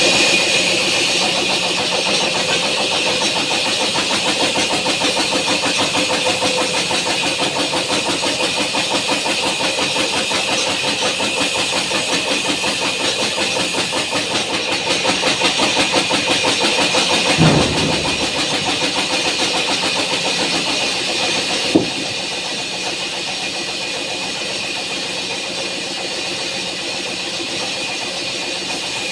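Engine-driven wood-cutting machine running steadily with a rhythmic chug and a strong high hiss. A thump comes about 17 seconds in and a sharp click near 22 seconds, after which it runs slightly quieter.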